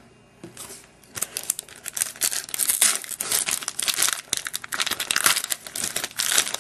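A wrapper on a pack of baseball cards being torn open and crinkled, a dense run of crackling that starts about a second in, after a single click at the start.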